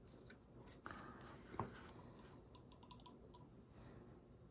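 Near silence broken by a few faint clicks and one light tap about a second and a half in, made by small styrene model parts and tools being handled on a workbench.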